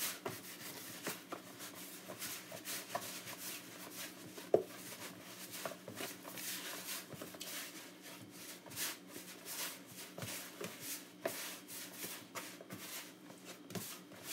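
Hands mixing flour and water into a crumbly paste in a plastic tub: irregular dry rustling and rubbing of the mix against the plastic, with scattered small knocks and one sharper knock about four and a half seconds in.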